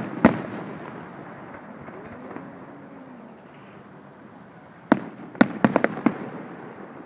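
Aerial fireworks bursting: one sharp bang just after the start, then a quick run of about six bangs about five seconds in.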